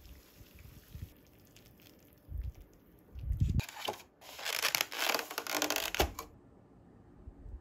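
A rigid plastic lid being fitted onto a cup-ramen bowl and pressed down around the rim: a couple of soft thumps, then about two seconds of crackling, scraping plastic that stops sharply.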